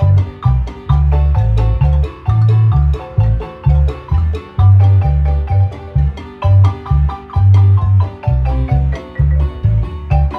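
Guatemalan marimba music: quick mallet-struck melody notes in the middle and upper range over a repeating pulse of low bass notes.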